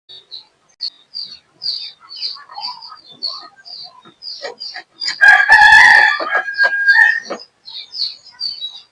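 A rooster crows once, a loud call of about two seconds starting about five seconds in, over a steady run of short high chirps repeating a few times a second.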